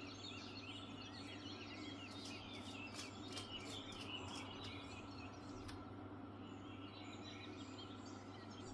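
Faint background birdsong, small birds chirping in quick, wavering notes over a steady low hum, with a few faint clicks.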